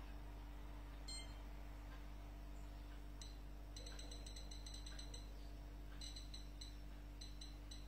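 Short electronic beeps from the control panel of a Bauknecht BIR4 DH8F2 PT built-in oven as its rotary knob is turned through settings. There is one beep about a second in, then quick runs of several beeps a second from about three seconds in and again after six seconds, over a faint steady hum.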